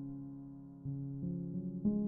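Gentle background music: a held keyboard chord fades away, then new chords and single notes come in about a second in.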